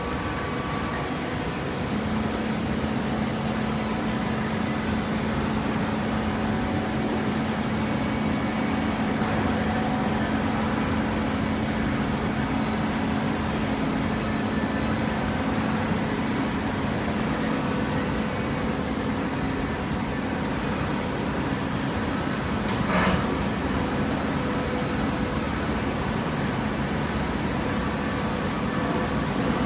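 Automatic hydraulic waste paper baler running: a steady machine hum, with a drone that sets in about two seconds in and fades about halfway through. There is a short hiss about three-quarters of the way through.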